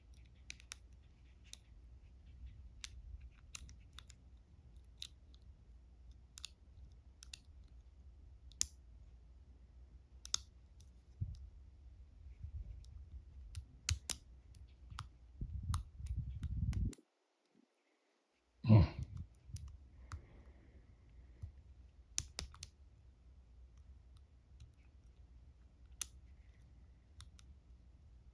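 Dimple pick working inside a dimple lock cylinder: scattered, irregular small metallic clicks and taps as the pick probes the pins. The loudest is a single sharp knock about two-thirds of the way through, just after a brief gap in the sound.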